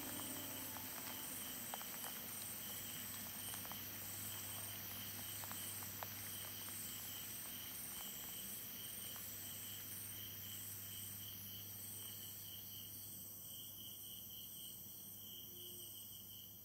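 Crickets chirping in a steady, evenly repeating rhythm, faint, fading away at the end.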